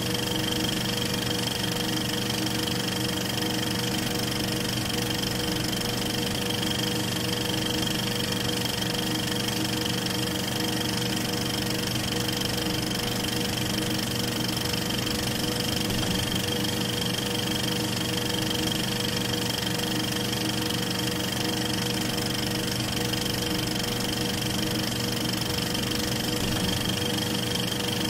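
Film projector running: a steady mechanical whir and clatter with a constant high whine, unchanged throughout.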